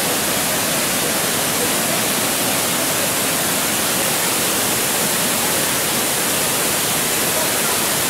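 Two-stage cascading waterfall in strong flow: a loud, steady rush of water pouring over rocks and a weir.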